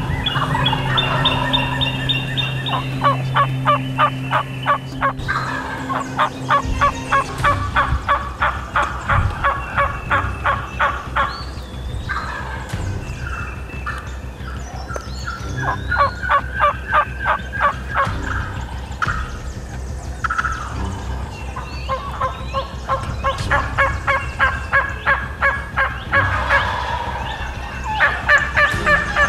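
Turkey yelping: repeated runs of loud, evenly spaced notes about five a second, some runs lasting several seconds, with short songbird chirps in the gaps between them. A low steady hum runs under the first seven seconds.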